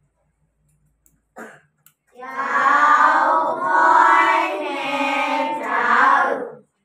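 A class of children calling out together in unison, a drawn-out sing-song chant that starts about two seconds in and lasts about four and a half seconds.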